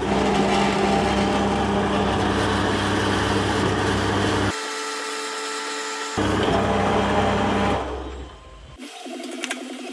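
Belfex BF 520C mini lathe converted to CNC running after being switched on: a steady motor hum with several tones, which changes abruptly about four and a half seconds in and again about six seconds in, then fades and gives way to a different, buzzing hum near the end.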